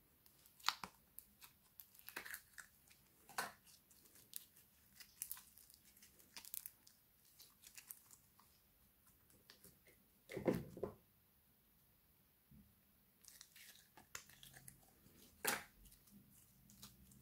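Slime being squeezed and stretched by hand: irregular sticky clicks and crackles, with one louder wet squelch about ten seconds in and a short pause after it.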